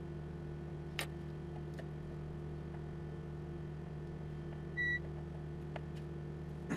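Steady electrical hum from bench equipment, with a few light clicks and one short high-pitched electronic beep about five seconds in.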